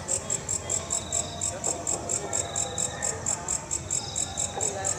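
Walang kecek bush katydid calling: a fast, even train of high-pitched chirps, about five a second.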